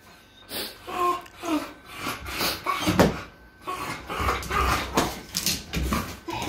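Young dog whining in short pitched cries while straining against a wire pet gate, with a sharp knock about three seconds in and scuffling noise after.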